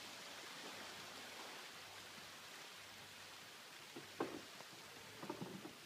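Faint, steady hiss of a calm seashore, with a few brief faint sounds about four seconds in and again near the end.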